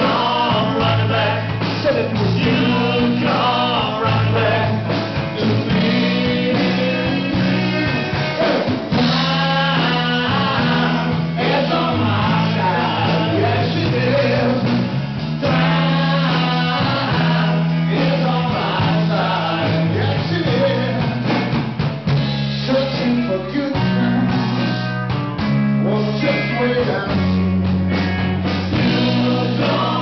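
Rock band playing a song, with singing, guitar and a bass line that changes note every second or two.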